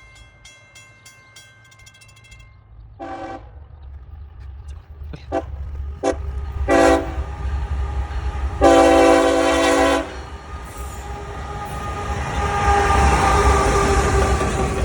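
Train approaching: a bell rings rapidly for the first two seconds or so, then the locomotive horn sounds several short blasts and one long blast. The train's low rumble grows louder as it draws near.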